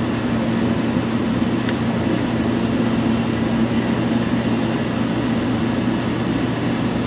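Steady low droning hum of a running machine, even throughout, with a faint click about a second and a half in.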